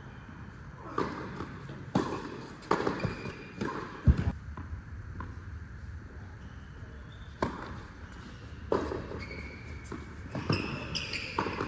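Tennis balls being struck and bouncing: a sharp pop every second or so, unevenly spaced, with a few short high squeaks between them.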